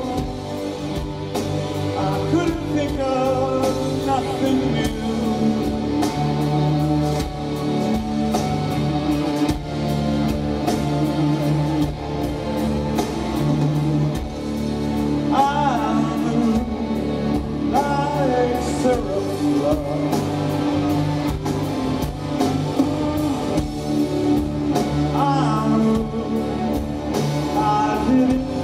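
Live rock band playing a slow blues-rock song: electric guitar, bass and drums, with a sung lead vocal.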